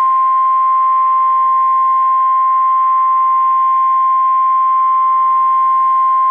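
NOAA Weather Radio warning alarm tone: one steady, high-pitched tone held without a break, over faint radio hiss. It signals that a weather warning is about to be read.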